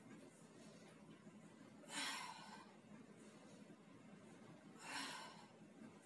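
A woman breathing out hard through the mouth, once with each sit-up, twice about three seconds apart.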